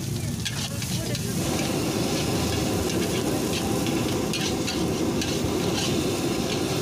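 Metal spatula scraping and clanking against a steel wok as fried rice is stirred and tossed, over a steady sizzle of rice frying in hot oil. The stirring gets busier about a second in.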